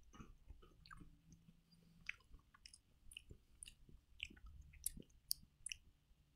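Faint crunching and chewing of a crispy takoyaki-flavoured potato chip, in irregular short crackles.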